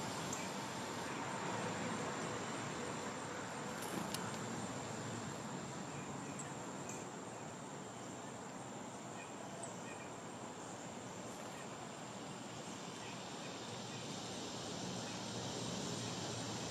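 Outdoor ambience dominated by a steady high-pitched insect trill, with a few faint short bird chirps and a single sharp click about four seconds in.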